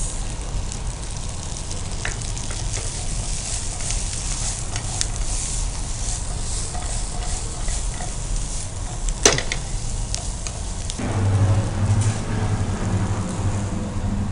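Corn Manchurian sizzling in a non-stick frying pan as a wooden spatula stirs and tosses it with spring onions, with one sharp knock of the spatula on the pan a little past halfway. A low steady hum comes in near the end.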